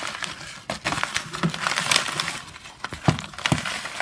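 Crinkling and crackling of a birdcage's bottom liner being rolled up by hand around spilled seed and droppings, with a few soft knocks.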